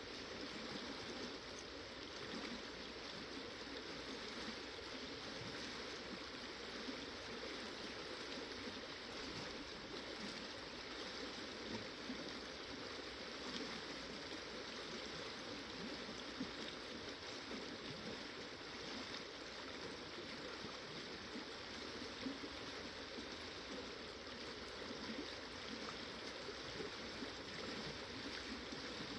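River water flowing steadily over a rocky bed, an even rushing wash with no pauses.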